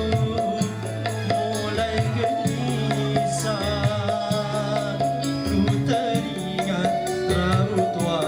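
Live band music: held bass notes and hand-drum strokes under a wavering melody line.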